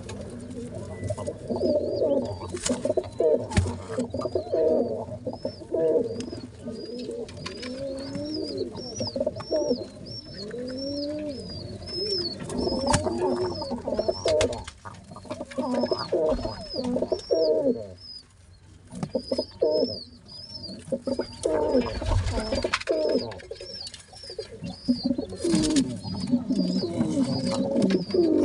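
Pigeon squabs begging while an adult pigeon feeds them beak-to-beak: a rapid, steady series of high-pitched peeps, two or three a second, with a few short breaks. Under them run lower, wavering pigeon calls, with rustling and soft bumps from the birds jostling.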